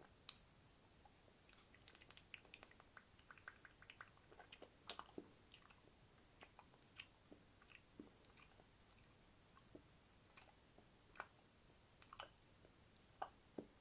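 Close-miked wet mouth sounds: quiet, irregular clicks and smacks of lips and tongue, coming thickly in the first few seconds and more sparsely after.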